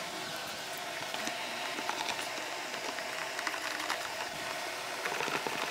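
Plastic wheel-well fender liner being handled and pressed into place, with scattered light clicks and taps of plastic and fasteners over a steady background hiss.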